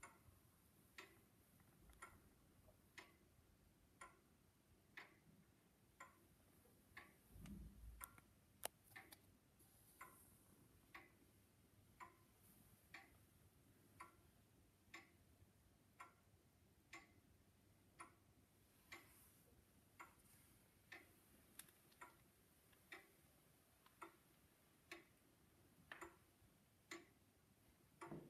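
Weight-driven pendulum wall clock ticking softly and evenly, about one tick a second.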